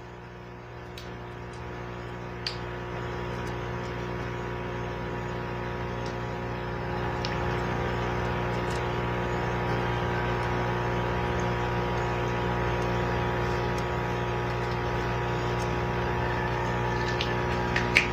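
Aquarium pump humming steadily, with a few faint clicks.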